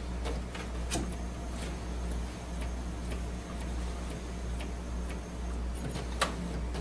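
Brother MFC-J5920DW inkjet printer running its initial ink-system preparation: light mechanical clicks, roughly one a second and not quite regular, over a low steady hum.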